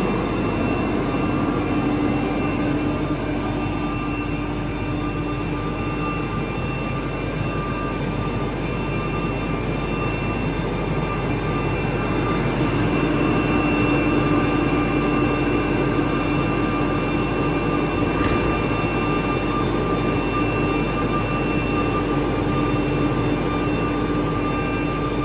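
ATC CNC router running: a steady machine noise with several constant hums. The lowest hum fades out a few seconds in and comes back about halfway through, as the machine's load changes.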